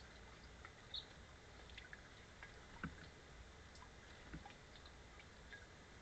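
Faint, scattered light taps and small water sounds from house sparrows hopping, drinking and bathing at a plastic bird bath, with one short high note about a second in.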